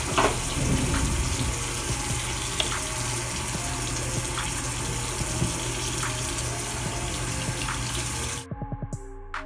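Bathroom tap running steadily into a sink, cutting off suddenly about eight and a half seconds in, when soft background music with a few clear notes takes over.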